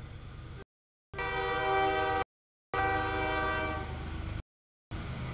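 Freight locomotive horn of a CSX double-stack intermodal train sounding a long blast over the low rumble of the passing train at the grade crossing. The horn starts about a second in and fades out near the end. The audio cuts out completely for a moment several times.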